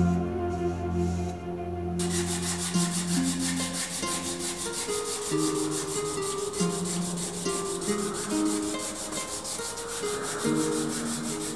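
Hand sanding: abrasive paper rubbing back and forth over synthetic ivory knife-handle scales. It is heard under background music with a slow, stepping melody.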